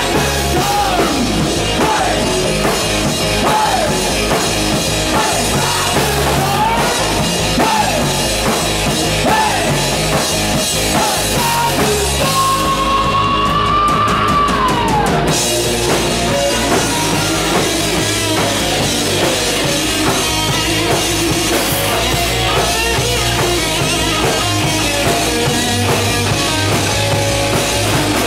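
Hard rock band playing live and loud: distorted electric guitars, bass and a pounding drum kit. A high melodic line slides up and down in pitch over it, with one long held note about halfway through that bends down at its end.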